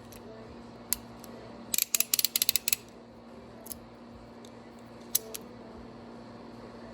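Channellock 929 snap ring pliers being worked by hand: a single click about a second in, then a quick run of ratchet clicks lasting about a second, and a couple of lone clicks later.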